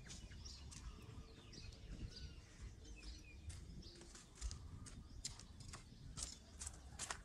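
Faint birds chirping, then from about halfway an irregular run of sharp dry crunches, like footsteps on dry leaves and grit, coming closer together near the end.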